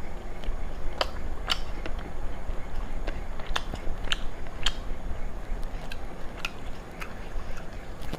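Close-up eating sounds of someone chewing rice and chicken, with a dozen or so sharp, wet mouth clicks and smacks at uneven intervals.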